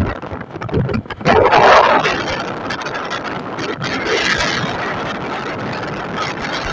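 Wind rushing over the microphone from a moving vehicle, over the steady noise of the vehicle travelling along the road, with a louder gust about a second in and another around four seconds.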